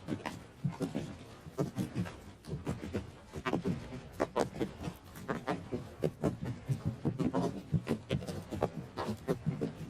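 Hooves of several galloping horses: a fast, uneven patter of hoofbeats several times a second.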